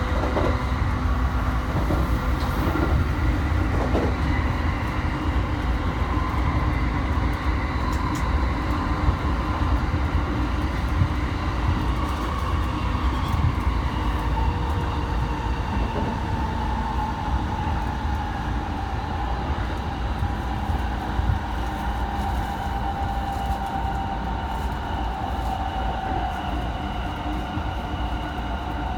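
Running noise of an E217-series electric commuter train heard from inside a passenger car: a steady rumble of wheels on rail, with a motor whine that slowly falls in pitch as the train slows, and a few faint clicks from the rail joints.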